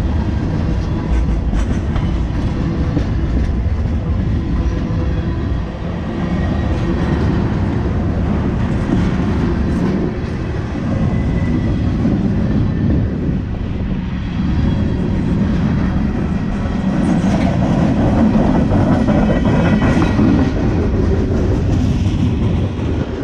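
Freight train cars rolling past at close range: a steady rumble and clatter of steel wheels on the rails.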